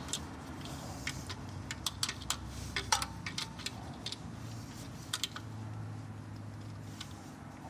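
Irregular light metallic clicks and clinks as an adjustable oil filter wrench on a ratchet is worked against an oil filter, with a brief squeak about three seconds in.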